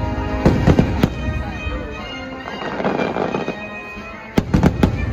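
Aerial fireworks shells bursting: a few sharp bangs about half a second to a second in, and a quick cluster of bangs near the end, over orchestral show music.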